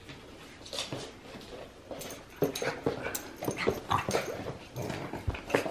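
A pug making a series of short, irregular sounds while playing, quieter at first and busier from about two seconds in.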